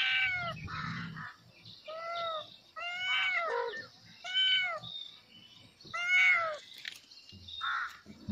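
A young kitten meowing repeatedly, about six separate calls a second or so apart, each rising then falling in pitch. These are a kitten's calls for its mother.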